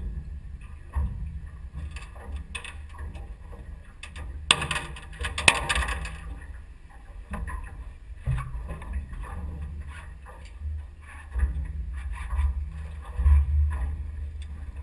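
Wind buffeting the action camera's microphone aboard a small boat: a fluctuating low rumble with scattered knocks. A loud rustling burst of handling noise starts about four and a half seconds in and lasts about a second and a half.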